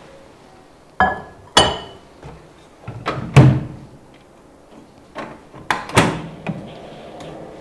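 A ceramic bowl set down with a short clink inside a Samsung microwave, the microwave door shut with a thunk, then clicks as its timer and power dials are turned, after which a faint steady running hum sets in.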